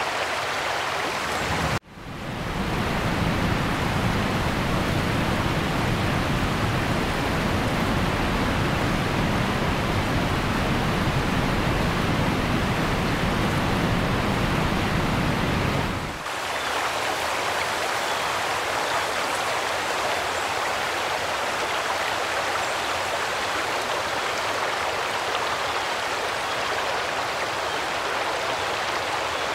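Heavy rain pouring down as a steady, loud hiss. It cuts out for a moment about two seconds in, and a deeper rumble under it falls away about halfway through.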